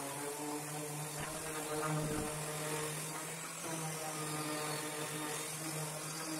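Electric random orbital sander running steadily as it is moved across wooden boards, a constant motor hum with the pad scrubbing the wood.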